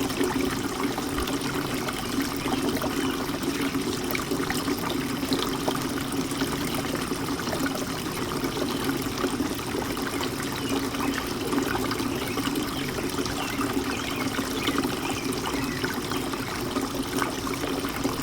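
Garden fountain water trickling and splashing steadily, with many small drips.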